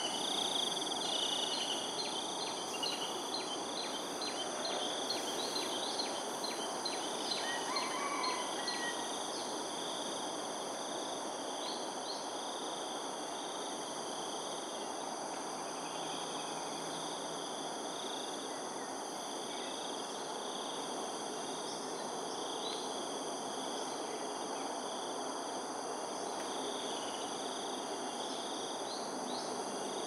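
Outdoor ambience of insects trilling steadily in several high-pitched tones over a steady background hiss. A quick repeated chirp sounds for the first several seconds, and a few short bird calls come about eight seconds in and again near the end.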